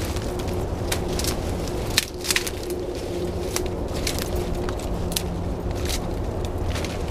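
Dry sticks, twigs and dead leaves crackling and snapping as brush is grabbed, pulled and trampled, with sharp snaps scattered throughout. A steady low hum runs underneath.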